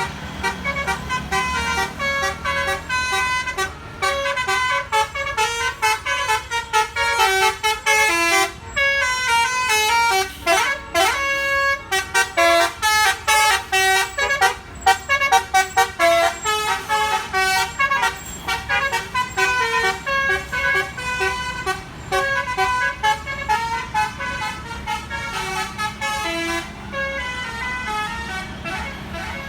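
Bus 'telolet basuri' musical air horn playing a fast tune of short notes, with a few rising glides about a third of the way through.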